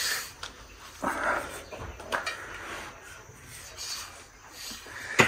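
Steel bed-frame parts being handled and fitted together by hand, with a few light clicks and knocks. A brief, louder sound comes about a second in.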